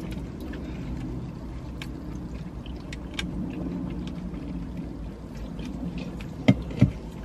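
Steady low rumble of a car idling, heard inside its cabin, with small scattered clicks of handling and two sharp clicks close together near the end.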